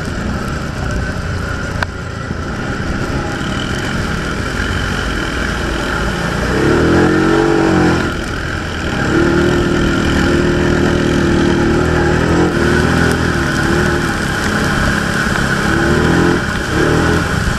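ATV engine running under throttle on a dirt trail; it revs up and down about six to eight seconds in, eases off briefly, then holds a steady higher pitch.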